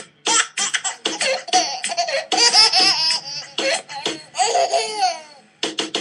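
Laughter played as a phone ringtone: repeated bursts of giggling that rise and fall in pitch. Near the end a fast, even electronic pulsing starts.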